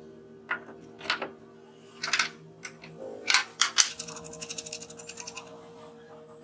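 Sharp metallic clinks as a brass nut and washers are fitted onto the threaded bolt of a car wiper motor's crank arm, then a quick run of small clicks, about eight a second, as the nut is tightened with a wrench.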